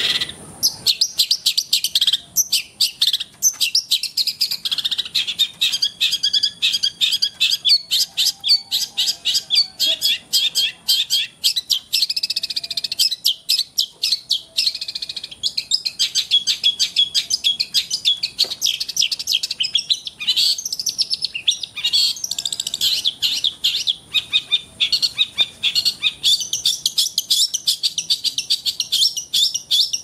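Caged long-tailed shrike (cendet) singing without a break in a fast, rapid-fire stream of chattering notes.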